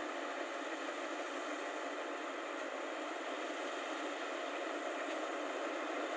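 Rice combine harvester running, a steady, even machine noise with no changes.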